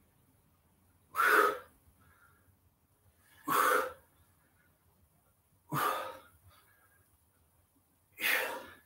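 A man's sharp, forceful exhalations, four in all, about every two and a half seconds, one with each side-to-side lunge: breathing out with the effort of each rep.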